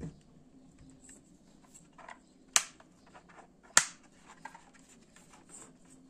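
Handling of a mechanical keyboard as it is turned over: faint taps and rustles, with two sharp knocks about a second apart near the middle.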